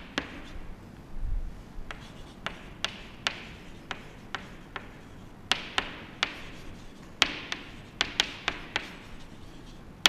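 Chalk writing on a chalkboard: a run of sharp, irregular taps as the chalk strikes the board, with short scratchy strokes between them.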